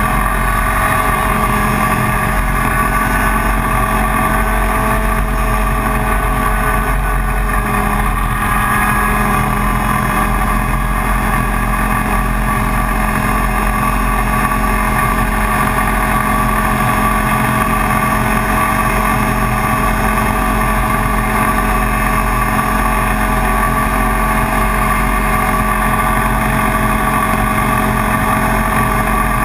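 Two-stroke 125cc IAME Leopard kart engine running with a steady, unchanging note.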